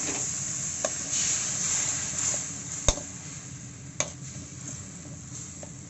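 Spice masala paste sizzling in a metal kadai just after a splash of water, the sizzle slowly dying down as the paste is fried. A metal spatula stirs it, knocking sharply against the pan about four times, loudest about three seconds in.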